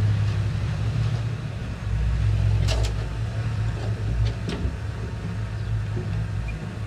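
Diesel engine of heavy earthmoving equipment running with a steady low drone, with a few short knocks about three and four and a half seconds in.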